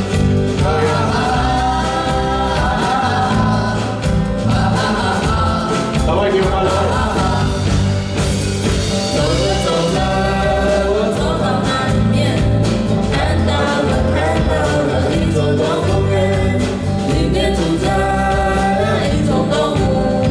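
Live band playing a song with sung vocals over a steady, moving bass line.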